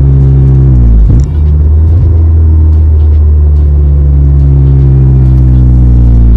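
Honda Civic Si's 2.4-litre K24 four-cylinder, fitted with an aftermarket downpipe and exhaust, droning loudly inside the cabin while driving, with a short dip in the note about a second in.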